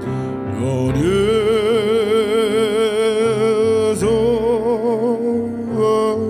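A man singing with piano accompaniment, holding one long, wavering note for about three seconds before starting a new phrase.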